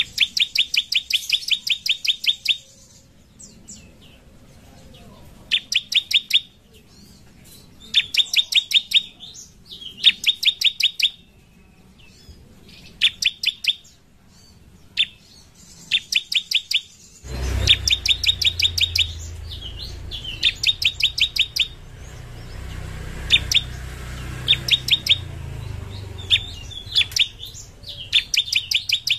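Bar-winged prinia (ciblek) singing: repeated bursts of rapid, high, sharp notes, each burst a second or two long, with short pauses between. About halfway through, a low rumble of background noise starts under the song.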